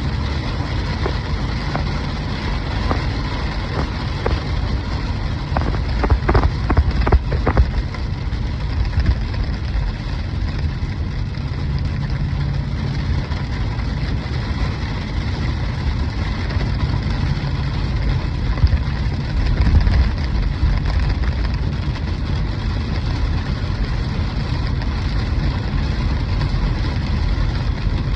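Hail falling in a storm: a steady, dense hiss of stones striking, with a low rumble underneath. A cluster of sharper, louder hits comes about six to seven and a half seconds in.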